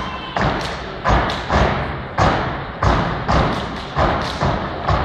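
Step team stepping in unison: stomps and hand claps in a rhythm of sharp hits about two a second, each trailing off in a short echo.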